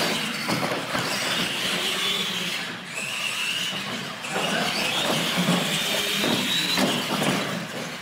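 Radio-controlled monster trucks racing, their electric motors and gears whining, the pitch climbing as they speed up.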